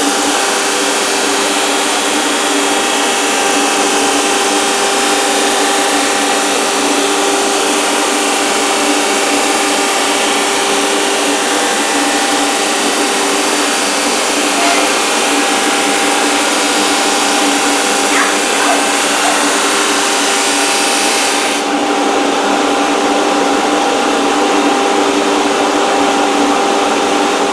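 Electric power sander running steadily on wood, with a steady motor hum under the sanding noise, then switched off and cutting out suddenly at the end.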